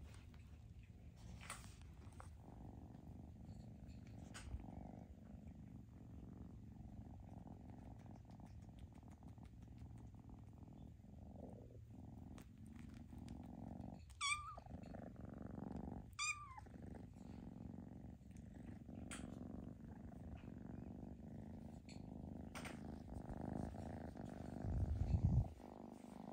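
Kitten purring steadily, a continuous low hum, with two short high mews about two seconds apart roughly halfway through. Near the end there is a louder low rumbling bump.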